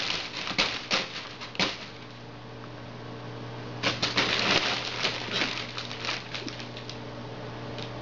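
Cats play-fighting: quick scuffles and pats of paws and claws, in a flurry during the first second and a half and again in a denser bout about four seconds in, with a few scattered ticks after, over a steady low hum.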